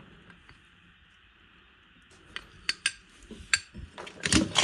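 Loose metal hand tools clinking and clattering as they are shifted around in a tool chest drawer. The sharp clinks start about two seconds in and grow busier and louder toward the end.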